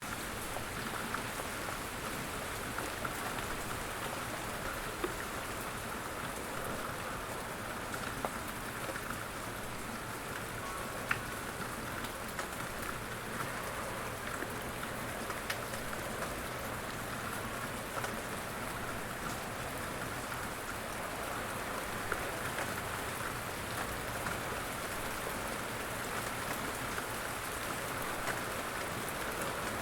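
Light rain falling steadily: an even hiss with scattered drop ticks, one sharper tick about eleven seconds in.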